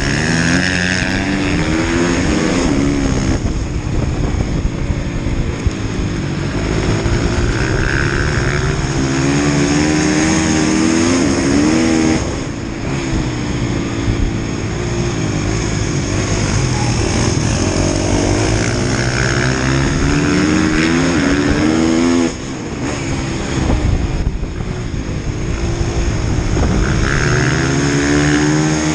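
Husqvarna FX 450's single-cylinder four-stroke engine racing flat track, heard from a camera mounted on the bike: the revs climb repeatedly under throttle and fall away sharply three times as the throttle is shut, over a steady rush of wind on the microphone.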